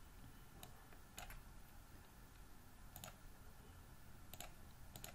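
Near silence with a few faint, scattered clicks from computer input at the desk.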